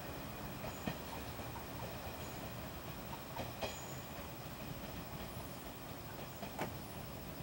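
JR 113 series electric train pulling away and receding, a steady, fairly faint rumble of wheels on rail with a few sharp clicks from the rail joints.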